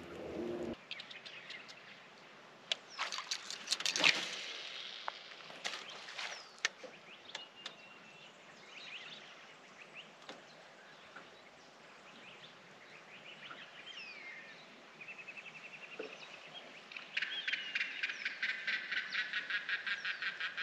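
Birds calling: scattered chirps and short whistles, with a few sharp clicks in the first seconds. Near the end a bird starts a fast run of repeated notes, several a second.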